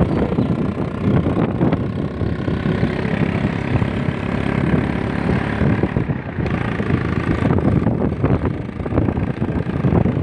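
Wind buffeting the microphone over the steady running of a small motorcycle engine while riding along a road.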